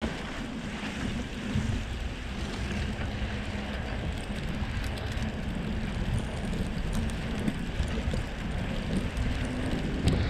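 Wind noise on the microphone over the steady rolling rumble and hum of a Surly Krampus's 3-inch Knard tyres on a snow-covered road.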